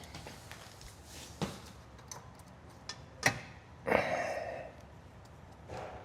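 Work on a motorcycle radiator mount: a few sharp metallic clicks and knocks, the loudest about three seconds in, then a short rattling scrape a moment later, with a fainter one near the end, as the mounting bolts are started by hand.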